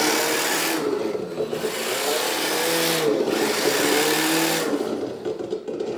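RC drift car's electric motor and drivetrain whirring as it speeds up and slows, with tyre hiss on a hard floor. The sound dips briefly about a second in and again about three seconds in as the throttle is let off, then falls away near the end.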